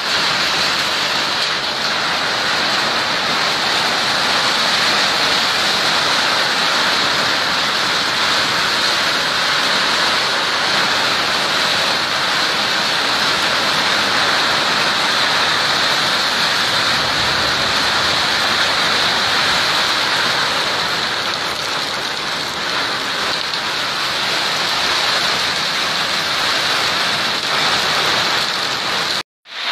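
Heavy storm downpour pelting the ground and roofs in a steady, dense hiss that cuts off suddenly near the end.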